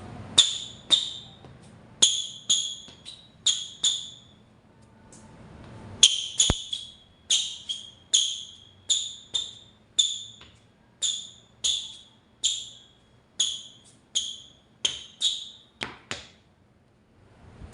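Rubber soles of Harden Volume 6 basketball shoes squeaking on the floor. A quick series of short, high squeaks, roughly two a second, with a pause of about two seconds around four seconds in.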